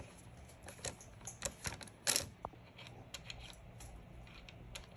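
Light, irregular metal clicks and taps of a hex key and fasteners being worked at an e-bike's front axle bolt. One louder knock comes about two seconds in, followed by a brief ring.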